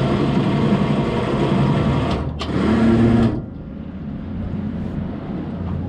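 Motorboat engine running, then dropping to a lower, quieter steady note about three seconds in, as the boat is throttled back.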